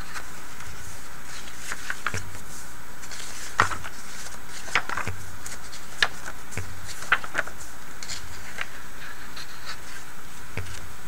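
Glossy pages of a thick auction catalog being turned by hand: several short slaps and rustles as the pages flip and settle. They play over a steady buzzing hum.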